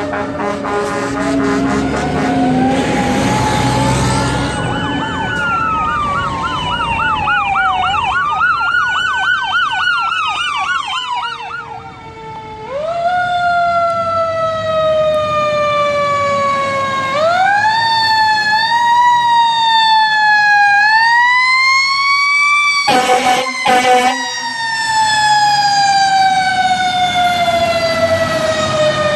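Fire truck sirens. First a siren moves from a slow wail into a fast rapid-fire yelp. Then, a little before halfway, comes another siren that winds up and falls away slowly, rising again several times, with a brief loud burst about two-thirds of the way through.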